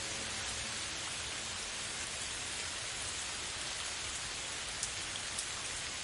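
Steady rain, an even hiss, with two faint ticks of drops near the end.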